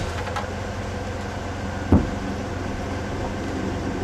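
Ultravan motorhome's air-cooled Corvair flat-six running as it drives, heard from inside the cabin, with a steady drone and grinding from the front wheels, the sign of the brake drum's edge rubbing on its backing plate. A single sharp clunk about two seconds in.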